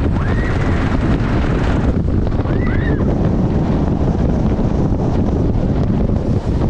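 On-ride sound of the Juvelen roller coaster train running along its track: wind buffeting the microphone over a steady low rumble of the cars. Twice a short high whoop rises and falls.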